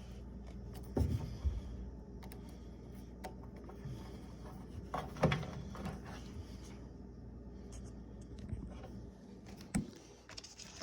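A few light clicks and knocks from hands fitting a new thermal fuse and its mounting bolt on the back of an electric dryer, over a steady low hum.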